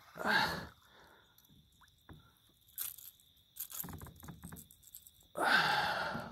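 A hooked bass splashing and thrashing at the surface beside a kayak, loudly twice: briefly near the start and again for about a second near the end. Between the splashes come faint scrapes and a few sharp clicks of rod and tackle handling.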